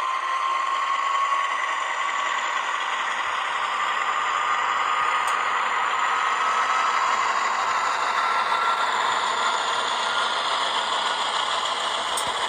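DCC sound decoder in an HO-scale C43/44 diesel locomotive model playing its diesel engine sound as the throttle is opened, the engine note slowly rising in pitch, mixed with the rattle of the model running along the track.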